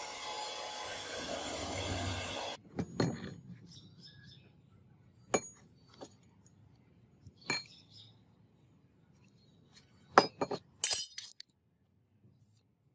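Belt sander grinding a steel axe blade, a steady abrasive noise that cuts off suddenly after about two and a half seconds. Then scattered metal clinks and taps as the axe head and a metal straightedge are handled and set down on concrete, the loudest cluster near the end.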